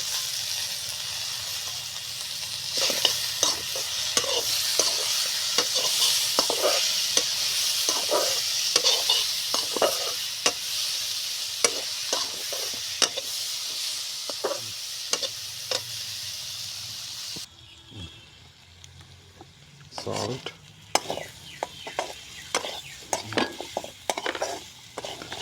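Chicken pieces frying in hot oil in a pan, sizzling while they are stirred, with frequent clicks and knocks of the stirring utensil against the pan. The sizzle drops off suddenly about two-thirds of the way through, leaving quieter stirring knocks.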